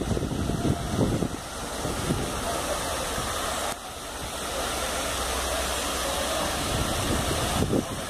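Wind buffeting the microphone over a steady rush of water spilling down a stepped cascade fountain into a pond.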